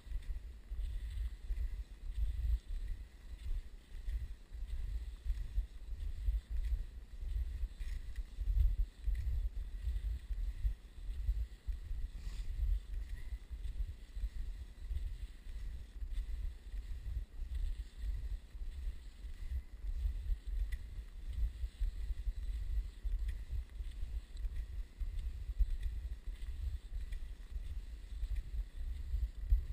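Wind buffeting the microphone of a moving outdoor camera: a low, gusty rumble that rises and falls without a break.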